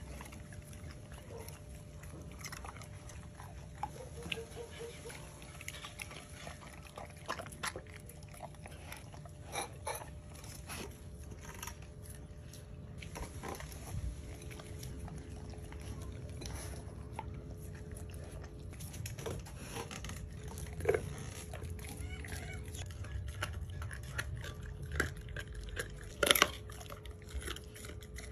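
Chocolate Labrador chewing and biting raw meat and a raw kangaroo tail, with scattered sharp crunches and wet mouth sounds, loudest near the end, over a steady low hum.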